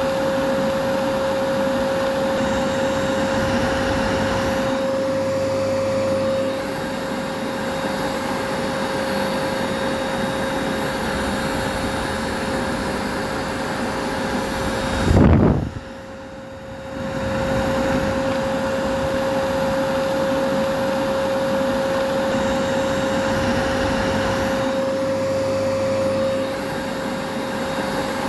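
Vacuum cleaner motor running steadily, a constant rushing hum with a steady high whine. About halfway through there is a brief low thump and the sound drops away for a second or so before returning at full strength.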